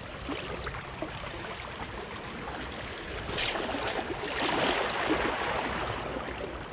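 Small waves lapping and washing against shoreline rocks, swelling louder for a couple of seconds just after the middle. A single sharp click sounds about halfway through.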